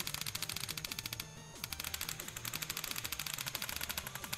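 Electronic background music with a steady stepped bass line, overlaid by a fast, even rattle of sharp clicks that breaks off for a moment about a second in and then resumes.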